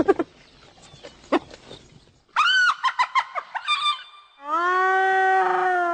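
Hyena calls. A quick run of short, rising-and-falling yelps comes first, then one long, drawn-out call that holds a steady pitch for about two seconds before dropping away near the end.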